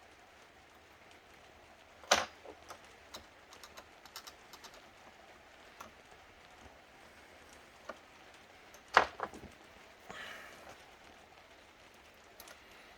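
Plastic laptop parts being handled during disassembly: two sharp knocks about two seconds in and again near nine seconds, scattered small clicks and taps between them, and a brief scrape just after the second knock.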